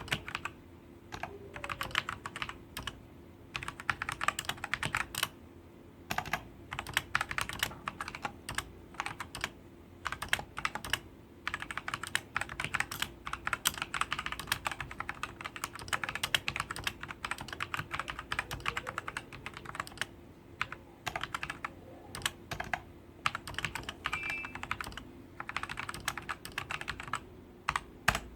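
Typing on a Royal Kludge RK Sink104Pro mechanical keyboard with Cherry MX Red linear switches: fast runs of key clicks and clacks in bursts, with short pauses between words and lines, over a faint steady hum.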